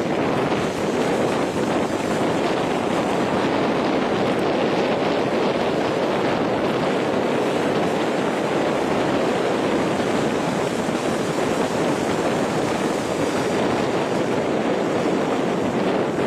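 Steady rushing of sea surf mixed with wind buffeting the microphone.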